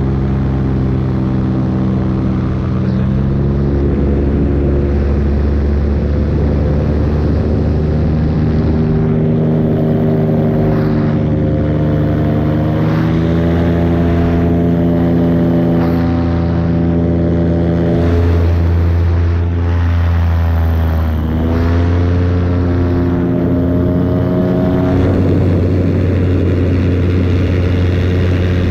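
Paramotor engine and propeller running in flight, the engine note rising and falling several times as the revs change, with a sharp dip and recovery a little past twenty seconds in.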